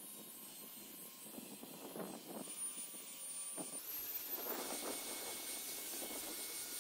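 Faint steady whir of a cordless drill spinning a foam polishing pad over a wet plastic headlight lens, the final buffing step of a headlight restoration.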